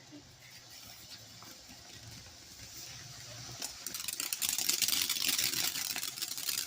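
A lit firework hissing and crackling: after a few quiet seconds, a dense sputtering crackle starts about three and a half seconds in and grows louder.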